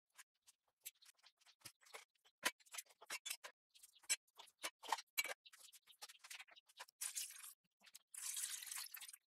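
Brass blowtorch parts clinking and knocking against each other and a plastic bowl in a quick string of sharp clicks. About seven seconds in, liquid cleaner is poured over them from a plastic bottle, a steady splashing hiss as it foams.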